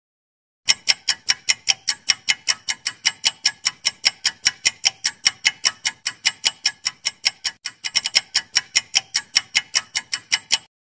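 Clock-ticking sound effect marking a quiz countdown timer: sharp, even ticks at about four a second, starting under a second in and stopping just before the end.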